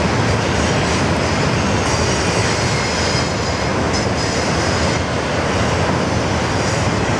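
Canadian Pacific double-stack intermodal freight train rolling by, a steady rumble of railcars on the rails with a faint, high wheel squeal.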